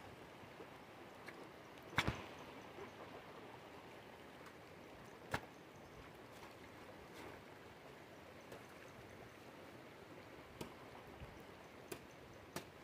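Wooden poles knocking and scraping as they are handled and pushed into muddy ground: a few sharp knocks, the loudest a double knock about two seconds in, another about five seconds in and several small ones near the end. Under them runs a faint steady rush of water.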